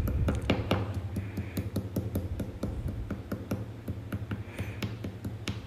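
A flat stone tapping and pressing down on fresh ginger against a countertop, crushing it: a quick, irregular run of sharp clicks and knocks, several a second, over a low steady hum.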